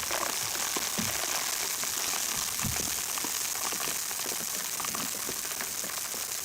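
Food frying in hot oil: a steady sizzling hiss with scattered crackles and pops.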